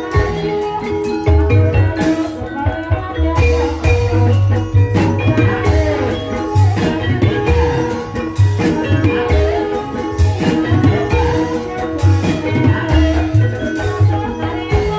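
Gamelan music accompanying an ebeg dance: tuned keyed percussion plays repeating melodic lines over deep drum strokes, with no singing.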